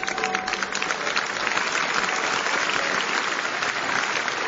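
Live audience applauding, a dense patter of many hands that swells to its loudest in the middle and eases off toward the end. A church bell rings faintly behind it at the start.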